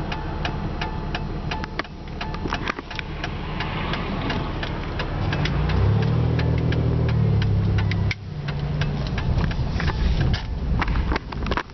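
Car engine idling, heard inside the car, with a fast, steady clicking of about three clicks a second. Around the middle a louder low drone with several pitches comes in for about two seconds.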